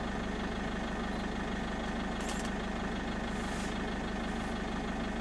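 A vehicle's engine idling steadily, a constant low hum with no change in speed.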